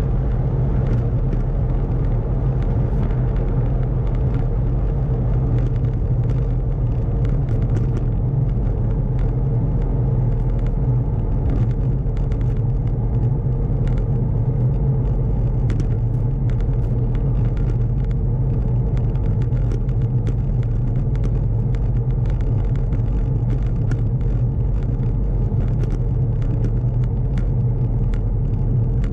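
Wind rushing over the microphone of a camera on a moving bicycle, together with the bicycle's tyres rolling on coarse asphalt: a steady low rumble with scattered small ticks.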